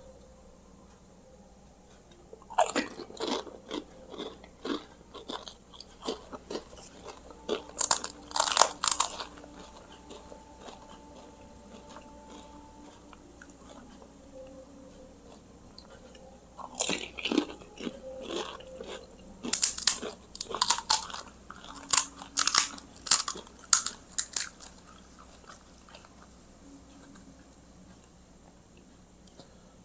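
Crisp fried pani puri shells crunching as they are bitten and chewed. There are two runs of loud crackling crunches, the first a few seconds in and the second past the middle, with quieter chewing between them.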